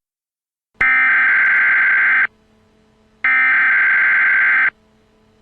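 Emergency Alert System SAME header. Two identical bursts of digital data tones, each about a second and a half long with about a second between them, begin about a second in. They mark the start of an emergency alert broadcast, and a faint steady hum sounds in the gap.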